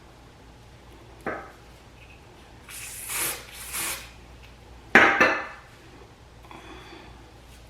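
Handling of hair products and tools at a table: a small click, two short hisses, then a hard item set down with a loud clatter about five seconds in.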